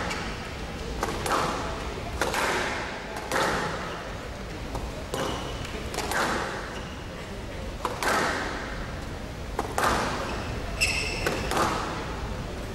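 Squash rally: the ball cracks off rackets and the front wall about once a second, each hit echoing in the hall, with a few short squeaks of court shoes on the wooden floor.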